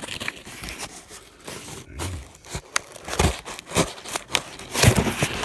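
Cardboard box being cut and torn open with a knife: an irregular run of scraping, tearing and crinkling with sharp clicks, loudest near the end.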